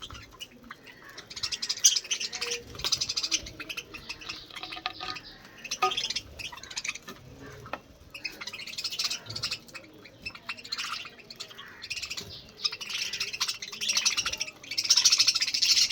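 Budgerigars chattering and chirping in quick, busy runs of high notes. The chatter comes in several stretches, loudest near the end.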